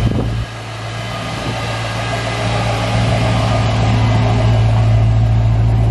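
A car engine running steadily with a low, even hum. It drops a little about half a second in, then grows gradually louder and holds.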